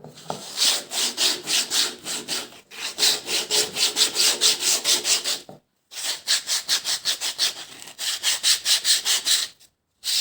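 Sandpaper rubbed back and forth by hand over the edges of a wooden piece to break the edges. It makes quick rasping strokes, about four a second, in three runs with short pauses between.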